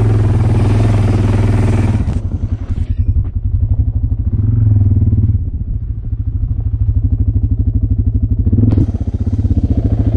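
Motorcycle engine running under way, heard from the pillion seat: a loud rush of wind over the engine for the first two seconds, then the wind drops away and leaves the engine's low, evenly pulsing beat, until the rush comes back near the end.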